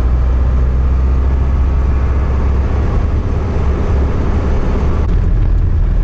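A vintage car's engine and its tyres on a rough road, heard from inside the cabin while driving: a loud, steady low rumble.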